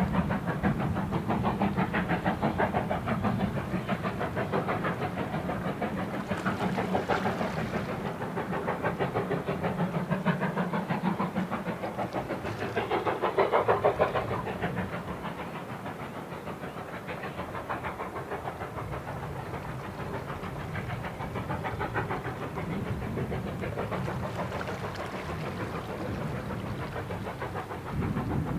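BR Standard Class 4MT 4-6-0 steam locomotive No. 75014 hauling a train of coaches, its exhaust beating in a fast, steady rhythm with the running of the train on the rails. The sound swells briefly about halfway through and then eases as the train draws away.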